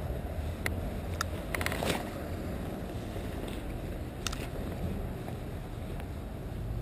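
Low, steady wind rumble on the microphone, with a few light clicks in the first two seconds and one more about four seconds in.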